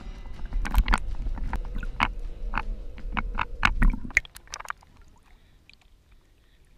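Water sloshing and bubbling around an action camera held underwater: a muffled low rumble full of sharp bubble clicks and knocks. About four seconds in it drops away to a faint quiet with a few small ticks.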